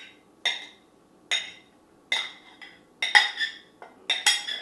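Metal spoon knocking and scraping chopped broccoli out of a ceramic dish into a glass mixing bowl: a series of sharp clinks, about one a second, each with a short ring, some coming in quick pairs near the end.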